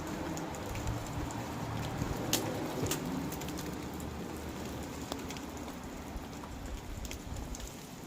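Steady patter of rain, with scattered sharp ticks of drops striking hard surfaces.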